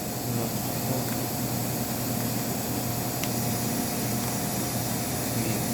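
Steady hum and hiss of running machine-shop machinery, with a faint click about three seconds in.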